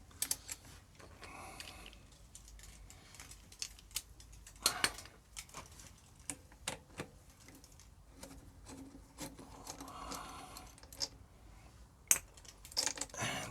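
Scattered light clicks, taps and rubbing of hands working at a motorcycle's rear brake caliper, unclipping the ABS sensor wire from its clips, with a few sharper clicks about five seconds in and near the end.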